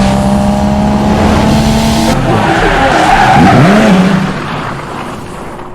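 A car engine running hard with tyres skidding and squealing: a loud rush of noise that swells to a peak in the second half, then fades away.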